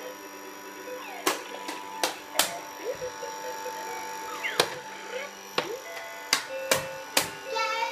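Hard plastic toys knocked and handled, giving about nine sharp clicks and knocks at irregular intervals over a faint steady electronic hum.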